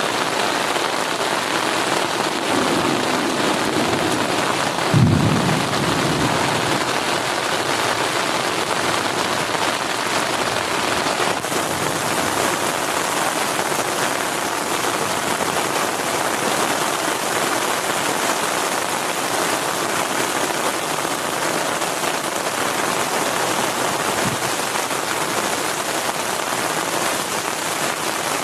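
Heavy rain falling steadily on a tent, with a sudden thunderclap about five seconds in that rumbles off over a second or two and a fainter low thump near the end.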